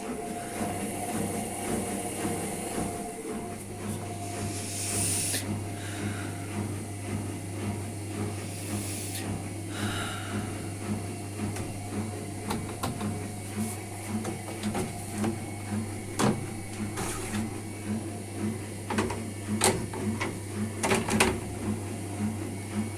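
Hotpoint Ariston ARSL100 front-loading washing machine running: a steady hum with a regular pulse about twice a second, a couple of short hissing washes, and scattered clicks and knocks in the second half.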